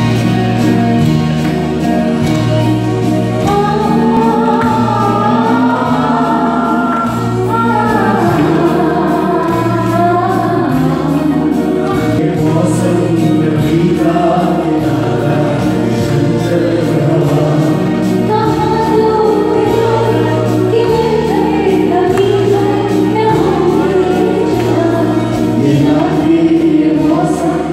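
Live amateur performance of an old Hindi film duet: singing over backing music with a steady, repeating bass line.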